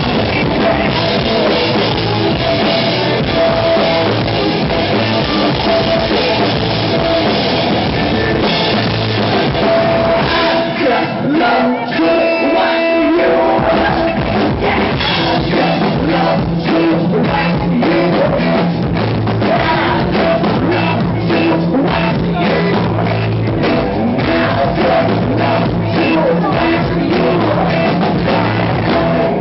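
Live rock band playing loud: electric guitar, drum kit and vocals. About twelve seconds in, the drums and low end drop out for a moment before the full band comes back in.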